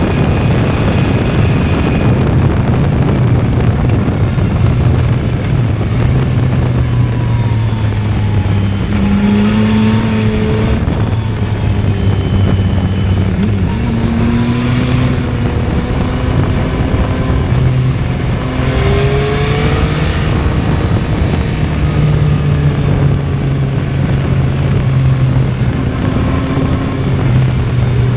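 Yamaha XSR 900's 890 cc inline three-cylinder engine running through an Akrapovič full exhaust system, heard from the bike while riding. The raw triple note rises and falls several times with throttle and gear changes.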